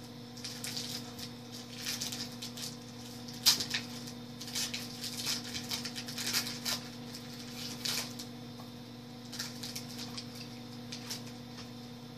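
A trading card pack's wrapper being torn open and the cards handled: irregular crinkling and crackling, sharpest about three and a half seconds in, over a steady low hum.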